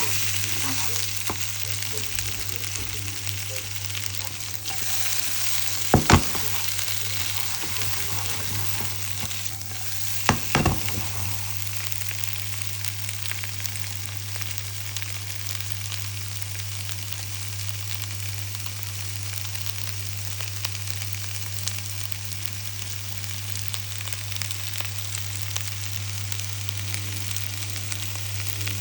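Potatoes sautéing in a frying pan, a steady sizzle with a low hum underneath. Two brief sharp knocks about six and ten seconds in.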